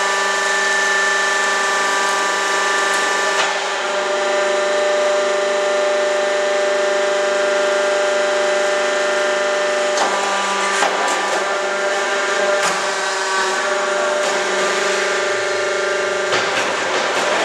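QFT5-20 semi-automatic hydraulic concrete block machine running through its moulding cycle: a steady whining hum of several tones from its motors and hydraulics. A few sharp clanks come around the middle, and the tone changes about halfway through and again near the end.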